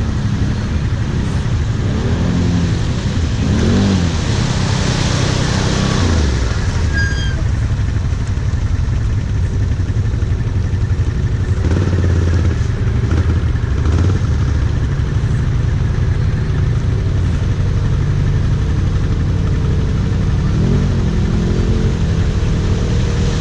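ATV engine running under load along a muddy trail, revved up in pitch about three times: a few seconds in, around the middle, and near the end. A rushing, hissing noise rides over it for a few seconds early in the ride.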